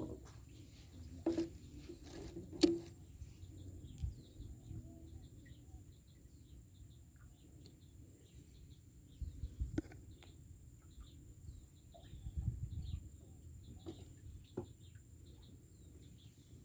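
Faint scattered bird chirps over quiet open-air ambience, with a few soft knocks, the loudest a little over two seconds in.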